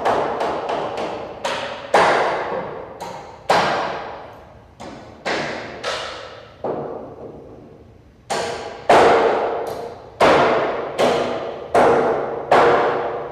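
Hammer blows with an added echo. Each strike is followed by a long fading reverberation with a ringing tone. The blows come in quick succession at first, then at an uneven pace of roughly one per second.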